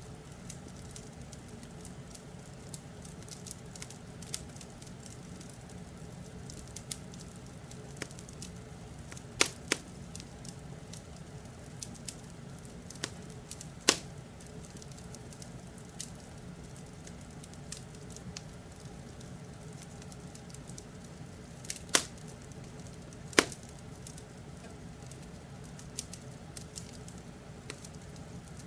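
Wood fire crackling, with scattered sharp pops over a low steady rumble; four pops stand out as much louder.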